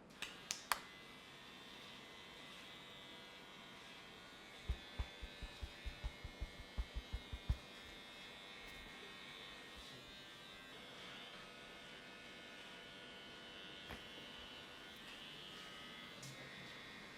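Steady buzz of a small electric motor. A run of about a dozen low thumps comes between about five and seven and a half seconds in.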